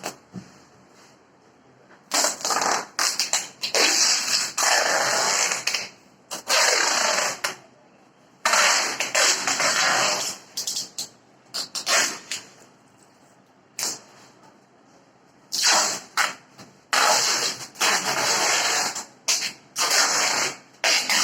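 Packing material being pulled and wrapped around a fridge, heard as repeated harsh tearing, scraping bursts of half a second to two seconds each, with short pauses between.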